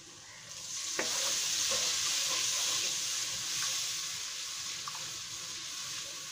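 A hot pan of fried onion and spice masala sizzling loudly as water is added, swelling up about half a second in and slowly dying down. A wooden spoon stirs the sauce, knocking once against the pan.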